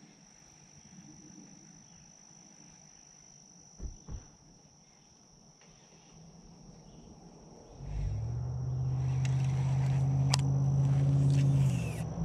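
A steady high-pitched insect call, with two low thumps about four seconds in. From about eight seconds in, a low engine drone comes in and becomes the loudest sound.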